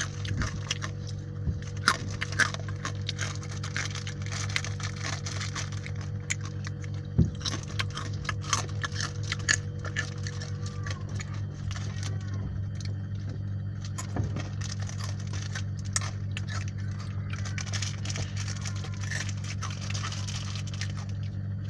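A person eating and handling food: scattered small clicks, taps and crinkles over a steady low hum.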